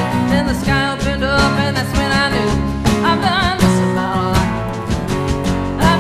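Live rock band playing an instrumental passage: strummed acoustic guitar, electric guitar and bass guitar over a hand-played drum keeping a steady beat, with a wavering lead melody line on top.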